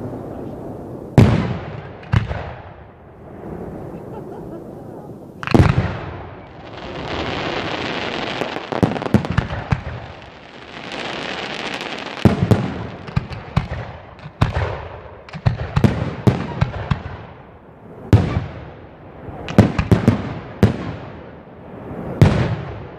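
Fireworks going off: a series of loud bangs, each with a fading echo, and between them long stretches of hissing with a dense crackle of small pops through the middle.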